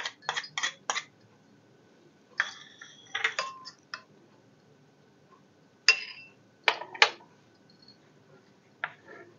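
A metal spoon and spatula clinking and tapping against a glass bowl as curd is spooned into raw milk and stirred: a quick run of taps in the first second, a brief glassy ring about two and a half seconds in, and a few sharp knocks around six and seven seconds in.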